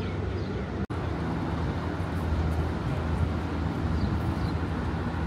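Steady low background rumble of traffic-like city noise, broken by a brief cut to silence about a second in, with a few faint high chirps.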